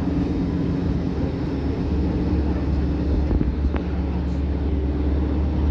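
A car ferry's engines running steadily underway: a constant low drone with an even hiss over it.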